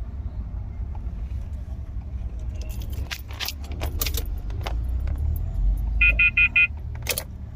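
Car keys clicking and rattling as the ignition is switched on, then four quick electronic beeps a little after the middle. A steady low rumble runs underneath.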